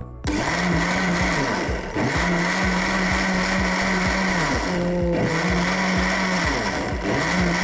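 Philips 5000 Series blender running its Quick Clean mode: the motor spins the blade through about 500 ml of water, churning it around the sealed jar. It starts just after the button press and runs steadily, dipping briefly twice.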